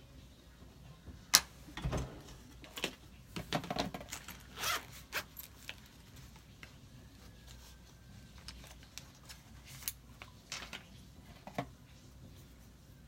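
Small clicks, taps and short rustling scrapes from handling an eyeshadow palette and makeup brushes. There is a sharp click about a second in, a cluster of scrapes over the next few seconds, and a few scattered clicks near the end.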